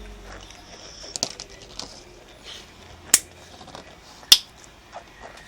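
A handful of sharp clicks and taps from plastic Play-Doh toy pieces being handled, with two louder snaps about three and four seconds in.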